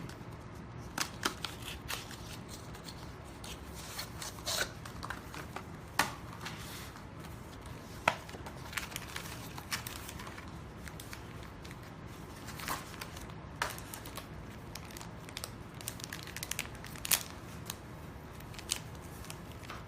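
A screen protector package being opened and its contents handled: scattered rustles, crinkles and light clicks of cardboard and plastic, with a few sharper ticks, over a steady faint background noise.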